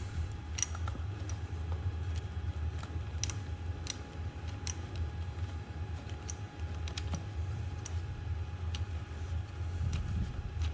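Scattered small metallic clicks and ticks, about a dozen at irregular intervals, as a fastener on a dirt bike engine is worked loose by hand, over a steady low hum.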